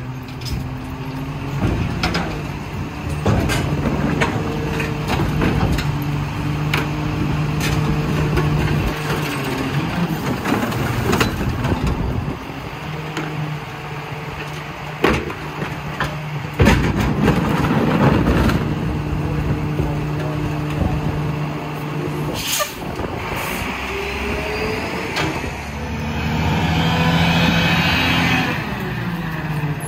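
Lodal EVO split-body garbage truck's diesel engine running, its pitch stepping up and down as it revs, with a swell up and back down near the end. Sharp knocks and clanks come every few seconds, and an air-brake hiss comes about two-thirds of the way in.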